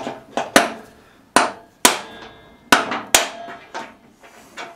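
Irregular sharp metallic clanks, about eight, each with a short ring, as the freshly driven-out spindle bearing and spacer are knocked about and handled against the steel mower deck.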